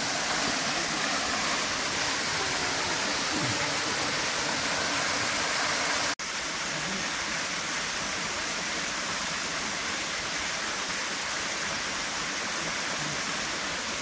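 Waterfall plunging into a rock pool: a steady rush of falling water. It cuts out for an instant about six seconds in, then carries on slightly quieter.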